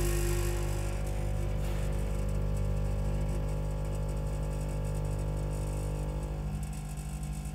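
A powder weighing machine discharging a heavy stream of tin powder into a stainless steel bucket: a steady machine hum with the hiss of pouring powder. Part of the hum stops about six and a half seconds in.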